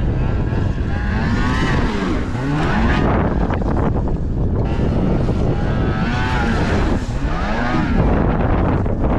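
Snowmobile engines revving as sleds ride past twice, the pitch rising and then falling away each time, over heavy wind buffeting the microphone.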